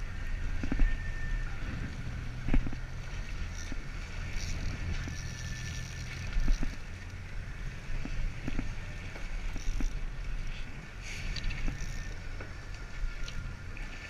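Offshore fishing boat at sea: a steady low rumble with wind on the microphone and water splashing along the hull, with a few faint clicks.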